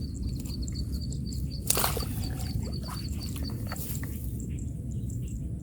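A rapid run of short, high chirps, several a second at one pitch, from a small animal outdoors, over a steady low rumble. A brief rustling burst comes about two seconds in.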